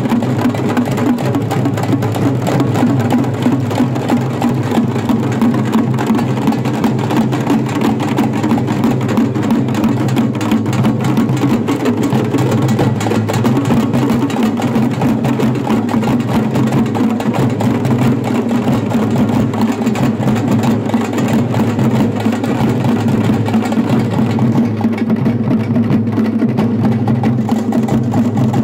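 Parai frame drums beaten with sticks in a fast, unbroken rhythm, the sharp strikes running on without a pause.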